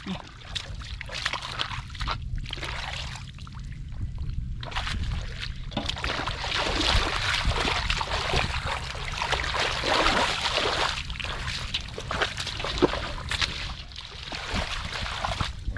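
Hands splashing and stirring through shallow muddy water while feeling for fish, in irregular bursts that are busiest in the middle.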